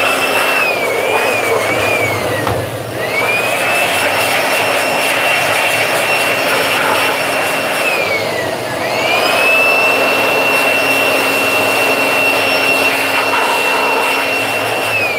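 Electric handheld air blower running with a high whine over a rush of air, blowing dust out of the underside of a sewing machine to clean it. The motor wavers a few times in the first couple of seconds, then spins down and back up twice, about three seconds in and about nine seconds in, and winds down at the very end.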